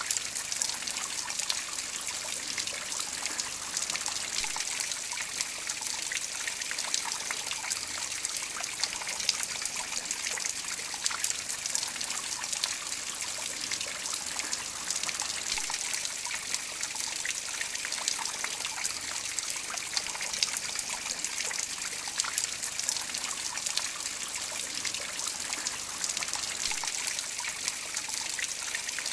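Water-fed copper lily leaves of a garden water feature trickling and dripping onto pebbles and paving stones. The sound is a steady patter of many small drops.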